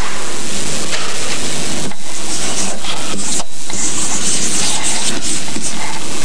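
Chalk scratching on a blackboard as words are written, heard through a constant loud hiss.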